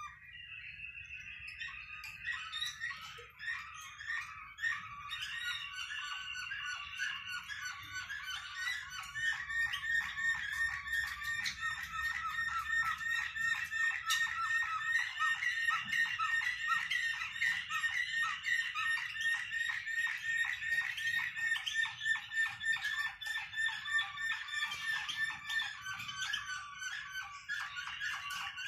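Captive desert finches, the birds Moroccan keepers call 'flawta', singing without a break: long drawn-out, wavering held notes over fast, dense chattering.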